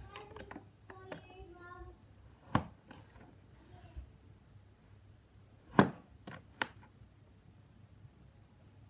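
A metal butter knife slicing through a block of purple play sand, with four sharp clicks of the blade striking the board beneath; the loudest comes about two-thirds of the way through.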